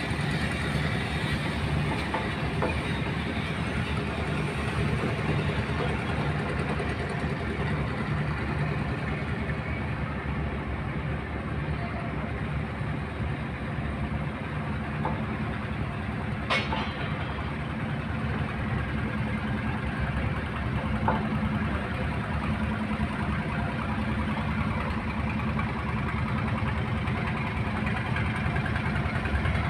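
Boat diesel engine running steadily with an even, rhythmic chug, with a single sharp click a little past halfway.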